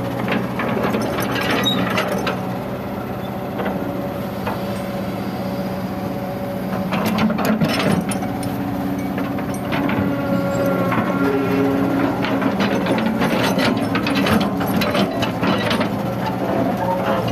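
Kobelco hydraulic excavator's diesel engine running steadily under load while the bucket scrapes through rocky soil, stones clattering and knocking against the steel bucket. The clatter comes in bunches: about a second in, around seven to eight seconds in, and again from about thirteen to sixteen seconds in.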